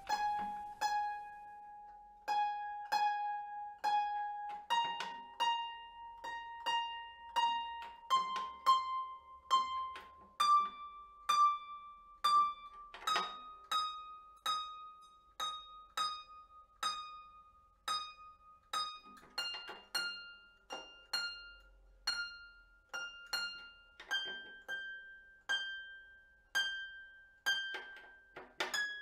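Lever harp strings plucked one at a time as they are tuned against a tuner. Each string is plucked several times, roughly once a second, and the pitch steps up string by string through about an octave, from around G to the G above.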